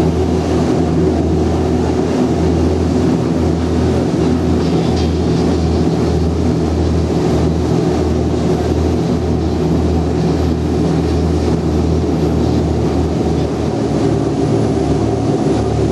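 Boat engine running steadily at cruising speed, a continuous low drone, with wind buffeting the microphone and the rush of the wake.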